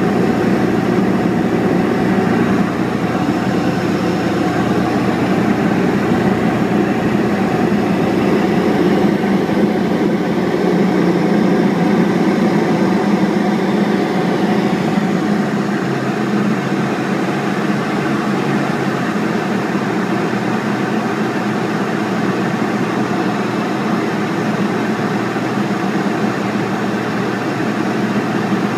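Arion Lightning light-sport airplane's piston engine and propeller droning steadily in cruise flight, heard from inside the cockpit; the drone eases slightly about halfway through.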